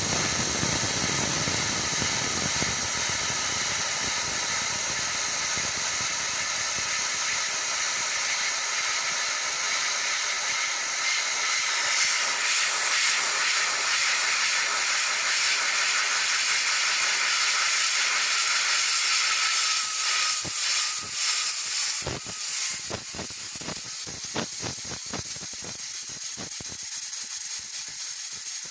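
Steam jetting from a stovetop pressure cooker's central vent with a loud, steady hiss. About two-thirds of the way in, the hiss weakens and breaks up into irregular crackling spurts as the steam jet dies down.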